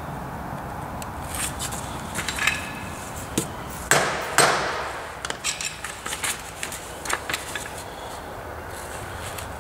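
A mallet tapping a cylinder casting held lightly in a milling-machine vise, knocking it into square: a run of light taps, then two harder knocks about four seconds in, then more light taps, over a steady background hum.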